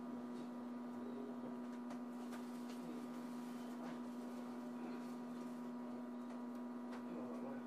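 Tokyo Metro 02 series subway car standing at a station platform. Its onboard electrical equipment gives a steady, even hum, with a few faint clicks scattered through.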